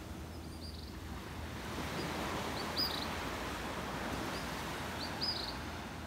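Steady wash of surf on a sandy beach, with a small bird chirping short high notes in clusters of two or three, about every two and a half seconds.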